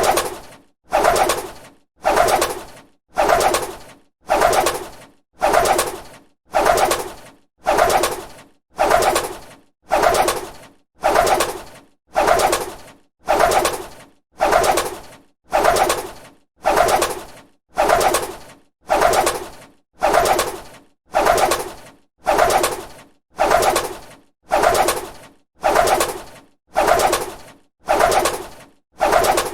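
Bird wings flapping: a short flurry of rapid wingbeats that starts sharply and fades within about a second, repeated evenly about once every 1.1 seconds.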